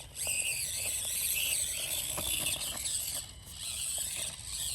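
Micro-scale RC crawler's electric motor and gears whining as it drives, the pitch wavering up and down with the throttle, with a few faint clicks and rustles from pushing through weeds.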